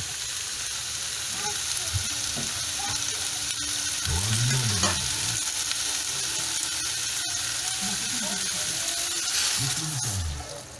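Pork and vegetables sizzling in hot oil in a wok, a steady frying hiss. Near the end the sizzle dies down as broth is poured into the pan.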